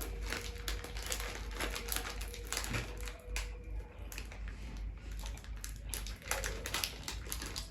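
A person chewing a top banana Jelly Belly jelly bean close to the microphone: a run of irregular small mouth clicks and smacks.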